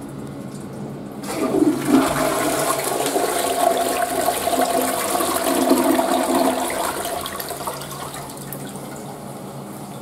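Western-style flush toilet flushing. The rush of water starts about a second in, swirls loudly for several seconds, then dies down near the end.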